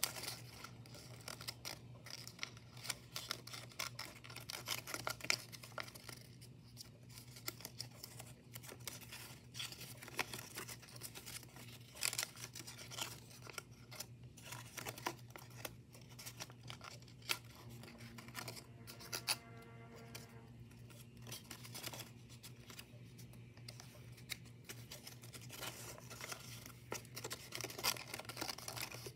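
White origami paper rustling and crackling as it is creased and folded by hand: many short, crisp crinkles at an irregular pace.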